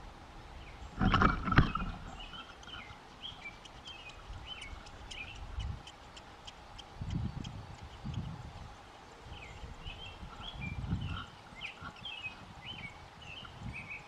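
American robins chirping at the nest: runs of short high chirps, one in the first half and another in the second. A loud rustling thump comes about a second in, and low rumbles come and go.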